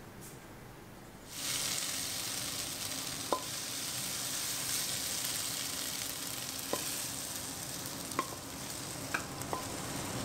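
Pork and garlic sprouts being stir-fried in a hot pan. The sizzling starts suddenly about a second in and keeps on steadily, with a few sharp ticks of the spatula against the pan.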